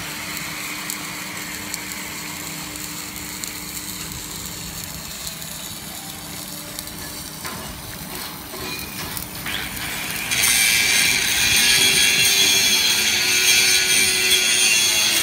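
Low workshop noise with a faint steady hum. About ten seconds in, a power tool starts up with a loud, high-pitched whine and hiss and keeps running.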